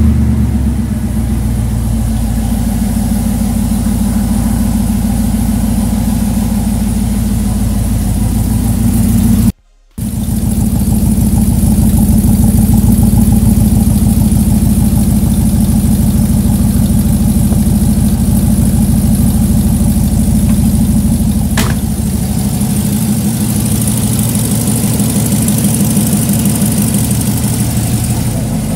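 A 1964 Chevrolet Impala's V8 idling steadily just after start-up, heard through its newly fitted dual exhaust with Magnaflow mufflers, with a little exhaust leak that the owner thinks is at a clamp. The sound cuts out for a moment about a third of the way in, and there is one sharp click about three quarters of the way through.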